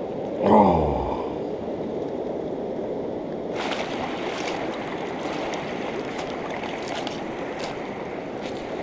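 Steady rush of a river flowing over rocks. About half a second in, a short falling voice sound, and from about three and a half seconds in, scattered light crunches and clicks.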